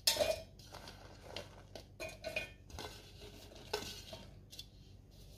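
Fresh red chillies dropped by the handful into a stainless-steel mixer jar: irregular light taps and rustles against the metal, the sharpest right at the start and another a little under four seconds in.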